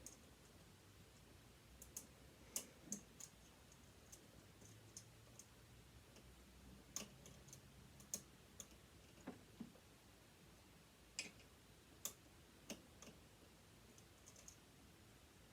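Scattered light clicks and taps of small metal parts against a sewing machine as a part is worked at to fit it back in, spaced irregularly over otherwise near silence.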